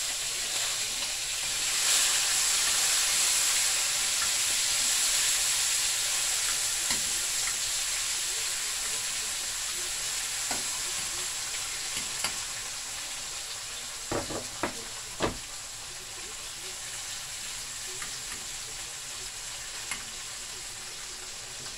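Onion, garlic and hot pepper sizzling in hot oil in a stainless steel pan. The sizzle is loudest about two seconds in and slowly dies down. A metal spoon stirring the pan clinks against it a few times in the second half.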